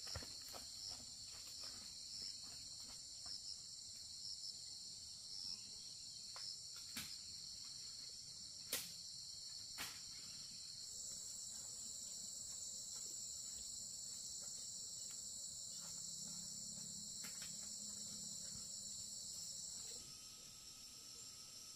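Steady chorus of forest insects, several high-pitched trills layered together, with a few sharp clicks or knocks, the loudest about nine seconds in. One trill grows louder about eleven seconds in, and near the end the chorus changes abruptly.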